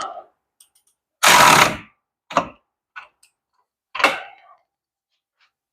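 Mechanic's tool work on a car's front wheel hub: one loud half-second burst a little over a second in, followed by a few sharp separate clicks and clanks of metal tools.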